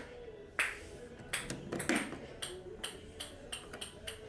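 A ping-pong ball shot from a desktop catapult landing and bouncing on a hard surface. The bounces ring lightly and come quicker and quicker as it settles. A few plastic clicks come from the catapult being handled.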